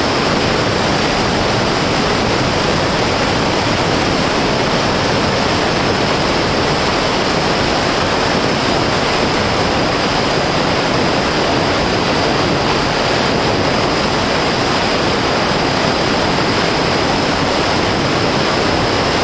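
Steady rushing wind noise from airflow over the onboard camera's microphone on a fixed-wing FPV plane in level flight, with a faint, steady high-pitched whine above it.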